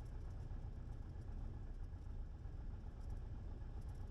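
Cessna 172's piston engine running at low taxi power: a faint, steady low drone.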